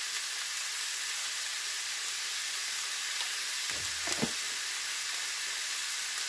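Chicken and potato filling sizzling steadily in oil in a frying pan, with a couple of light knocks about four seconds in.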